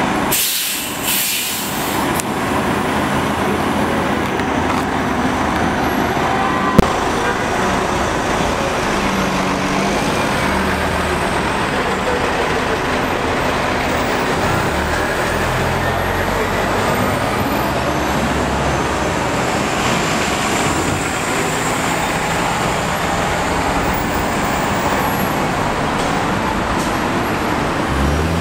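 City diesel buses running in street traffic: a bus engine idles at a stop and pulls away, over a steady background of traffic noise. A short hiss comes in the first two seconds, and a single sharp knock, the loudest sound, about seven seconds in.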